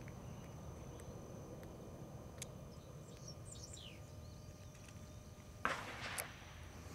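Pellets being loaded by hand into an Umarex Notos air rifle's magazine: a few light clicks, then a short rustle and clatter of handling about two-thirds of the way in. Under it is a quiet outdoor background with a steady high insect drone and a brief bird chirp near the middle.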